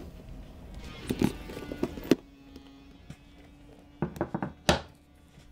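Quiet background music under a few knocks and clicks of things handled on a wooden table as a hairbrush is set down, with a small cluster of clicks near the end, the last one the sharpest.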